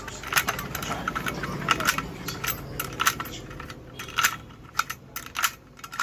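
Sharp metallic clicks and rattles of a door lock being worked with its key, about a dozen irregular clicks.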